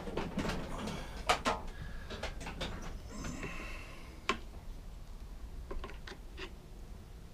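A flat-head screwdriver prying at a lawnmower's plastic air filter box: scattered clicks, scrapes and small knocks of metal against plastic, with a couple of sharper knocks.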